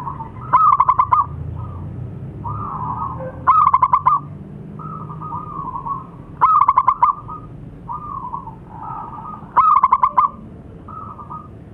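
Zebra dove (perkutut) cooing: four loud, rapid rolling phrases about every three seconds, with softer cooing notes between them.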